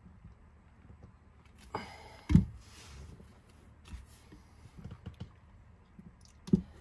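Handling noises as plastic hose fittings and metal hose clamps are picked up and fitted: scattered light clicks and knocks, with one sharp knock about two seconds in and another near the end.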